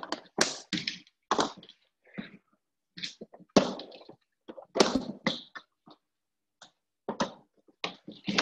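Handling sounds: an irregular series of knocks, thuds and clatters, like doors, lids and containers being opened, shut and moved.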